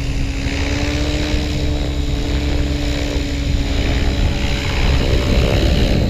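Align T-Rex 700E electric RC helicopter in flight: steady whir of the main rotor with the electric motor's whine, a little louder in the last second or so.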